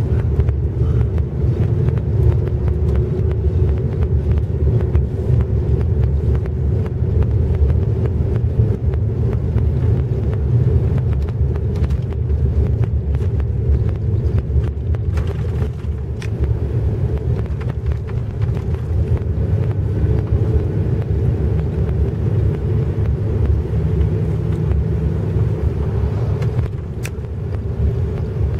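Steady road and engine rumble heard from inside a moving car, with the tyres and engine running at cruising speed. There is an occasional faint click.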